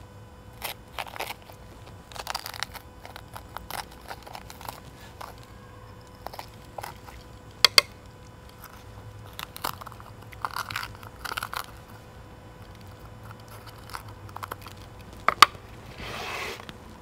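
Crunching and scraping of a fresh jalapeño being cored from the inside with a metal corer as the seeds and veins are scraped out. It comes in short irregular rasps with a few sharp clicks and a longer scrape near the end.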